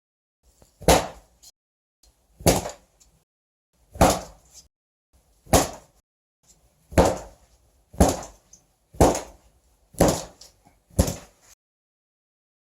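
A piece of cloth flapped sharply in the air: nine quick snaps, about a second and a half apart at first, then about a second apart, stopping shortly before the end.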